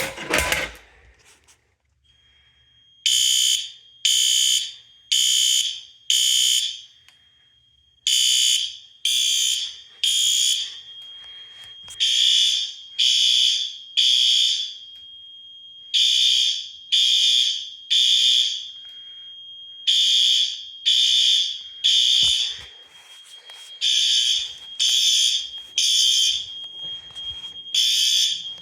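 Fire alarm horn sounding the temporal-three evacuation pattern: three blasts about a second apart, then a pause, repeating, set off by a pull station with a sharp click at the start. A thin steady high tone runs beneath the blasts, and there is a single thump about two-thirds of the way through.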